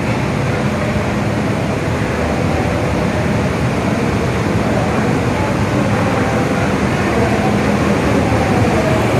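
Steady, loud engine and machinery rumble on the enclosed vehicle deck of a car ferry.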